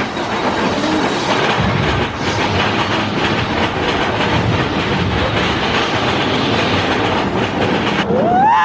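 Mine-train roller coaster running at speed, its wheels clattering and rattling on the track with a steady rushing noise. Near the end a rider's scream rises in pitch.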